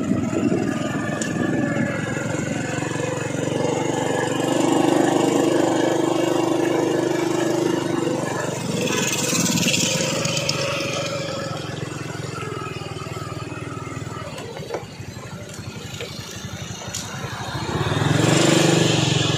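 Vehicle engines running on a road. A motor scooter passes close about halfway through, and a car passes close near the end as the engine noise grows louder.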